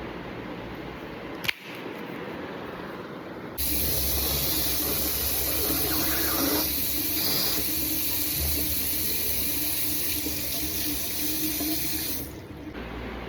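Water running steadily from a tap into a sink, turned on a few seconds in and cut off shortly before the end, after a single sharp click.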